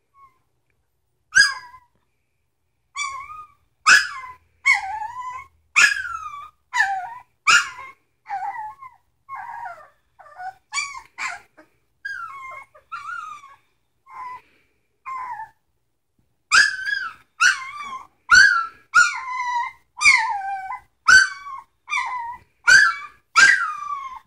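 Three-week-old Samoyed puppy yelping and whining in a long run of short, high calls, each starting sharply and falling in pitch. The calls pause briefly twice and come louder and faster in the last eight seconds.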